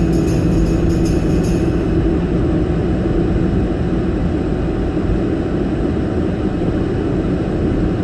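Car interior noise while driving: a steady rumble of road and engine noise. Music with jingling percussion fades out about two seconds in.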